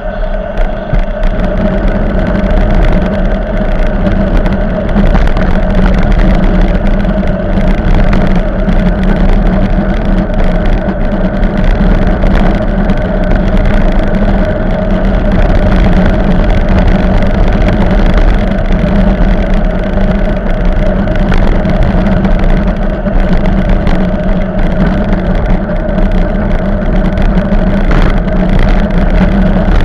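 Wind buffeting the microphone of a camera on a moving bicycle, with a steady low droning hum and rumbling road noise.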